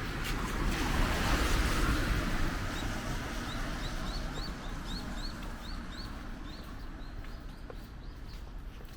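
A vehicle passing on a wet road, its tyre hiss swelling in the first two seconds and then fading away. A bird then calls a quick run of short rising chirps, two or three a second, for several seconds.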